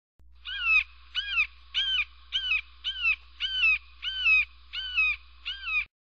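Red-shouldered hawk calling: a run of nine loud, harsh, downslurred "kee-ah" screams, evenly spaced at about one and a half a second.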